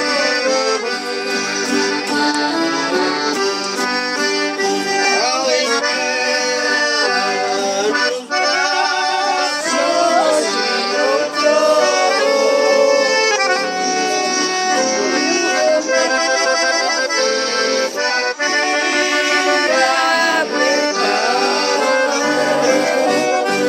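Accordion music playing continuously: a run of sustained notes and chords without a break.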